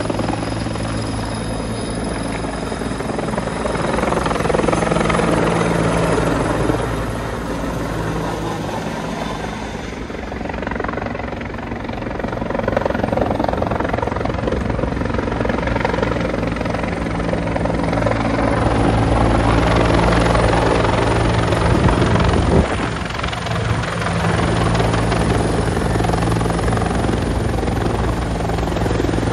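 Firefighting helicopters hovering low to scoop water into buckets slung beneath them. The rotors and engines run steadily, and the sound swells and eases as the aircraft move.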